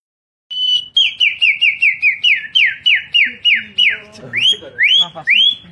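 A boy whistling an imitation of a songbird's call: a quick string of falling whistled notes, about four a second, that slowly lengthen and drop lower, then give way to a few rising notes near the end.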